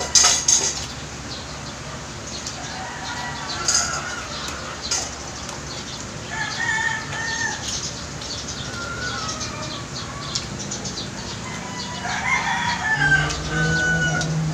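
Chickens clucking, with a rooster crowing in a long call near the end. There are close, sharp clicks of chewing, the loudest right at the start.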